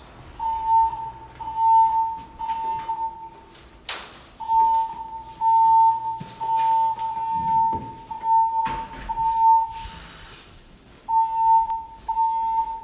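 Fire alarm evacuation speakers sounding their alert tone between voice announcements: a single steady high beep repeated in groups of three, each group followed by a longer pause, the temporal-three fire evacuation pattern. Two sharp clicks cut in, about 4 seconds in and again near 9 seconds.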